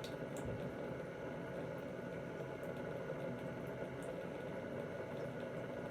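Quiet, steady low hum and hiss of room tone, with a few faint ticks.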